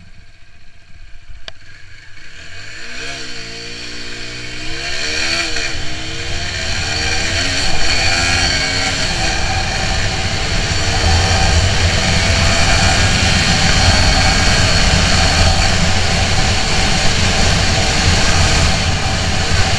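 TVS Apache RTR 160 4V's single-cylinder four-valve engine at full throttle, accelerating from a crawl to about 100 km/h. Its note climbs and drops back at each upshift, then keeps climbing in the higher gears, while rushing wind grows louder with the speed.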